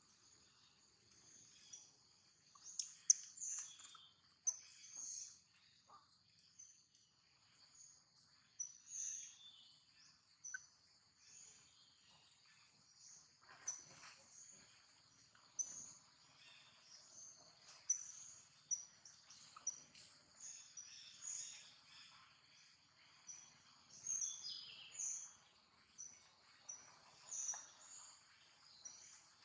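Outdoor bird and insect chorus: many short, high chirps repeat over a steady high-pitched insect drone. A few soft knocks and rustles are scattered through it.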